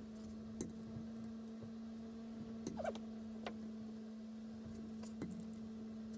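Faint scattered clicks and scrapes of a steel pick working at the seals inside a mini excavator's hydraulic ram gland held in a vise, with one brief squeak about three seconds in, over a steady electric hum.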